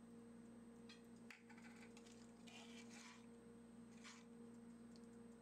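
Near silence: a faint steady hum, with a few brief, faint soft scrapes of a spatula stirring thin curry in a frying pan.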